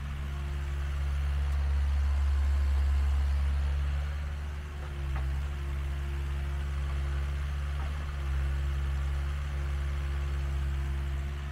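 Mini excavator's diesel engine running steadily, its note dipping briefly twice as the machine works.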